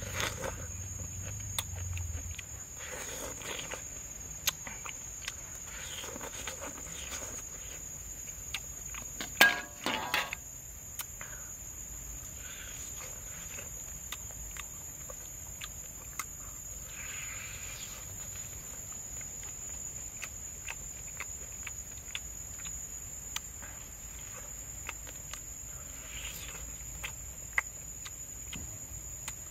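A man eating close to the microphone: chewing, lip smacks and small clicks, with one louder burst of mouth noise about nine seconds in. Under it runs a steady high-pitched drone of insects.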